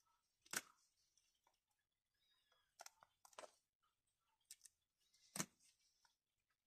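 Plastic-sleeved pages of a portfolio display book being turned by hand. There are two sharp flaps as pages fall over, about half a second in and near the end, with softer crackles and clicks of the plastic in between.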